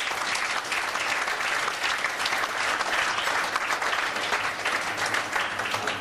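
Audience applauding: a dense, steady patter of many hands clapping that dies away quickly at the end.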